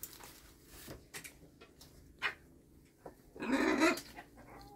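A parrot gives one short, harsh squawk about three and a half seconds in. Before it come a few faint clicks and a soft knock.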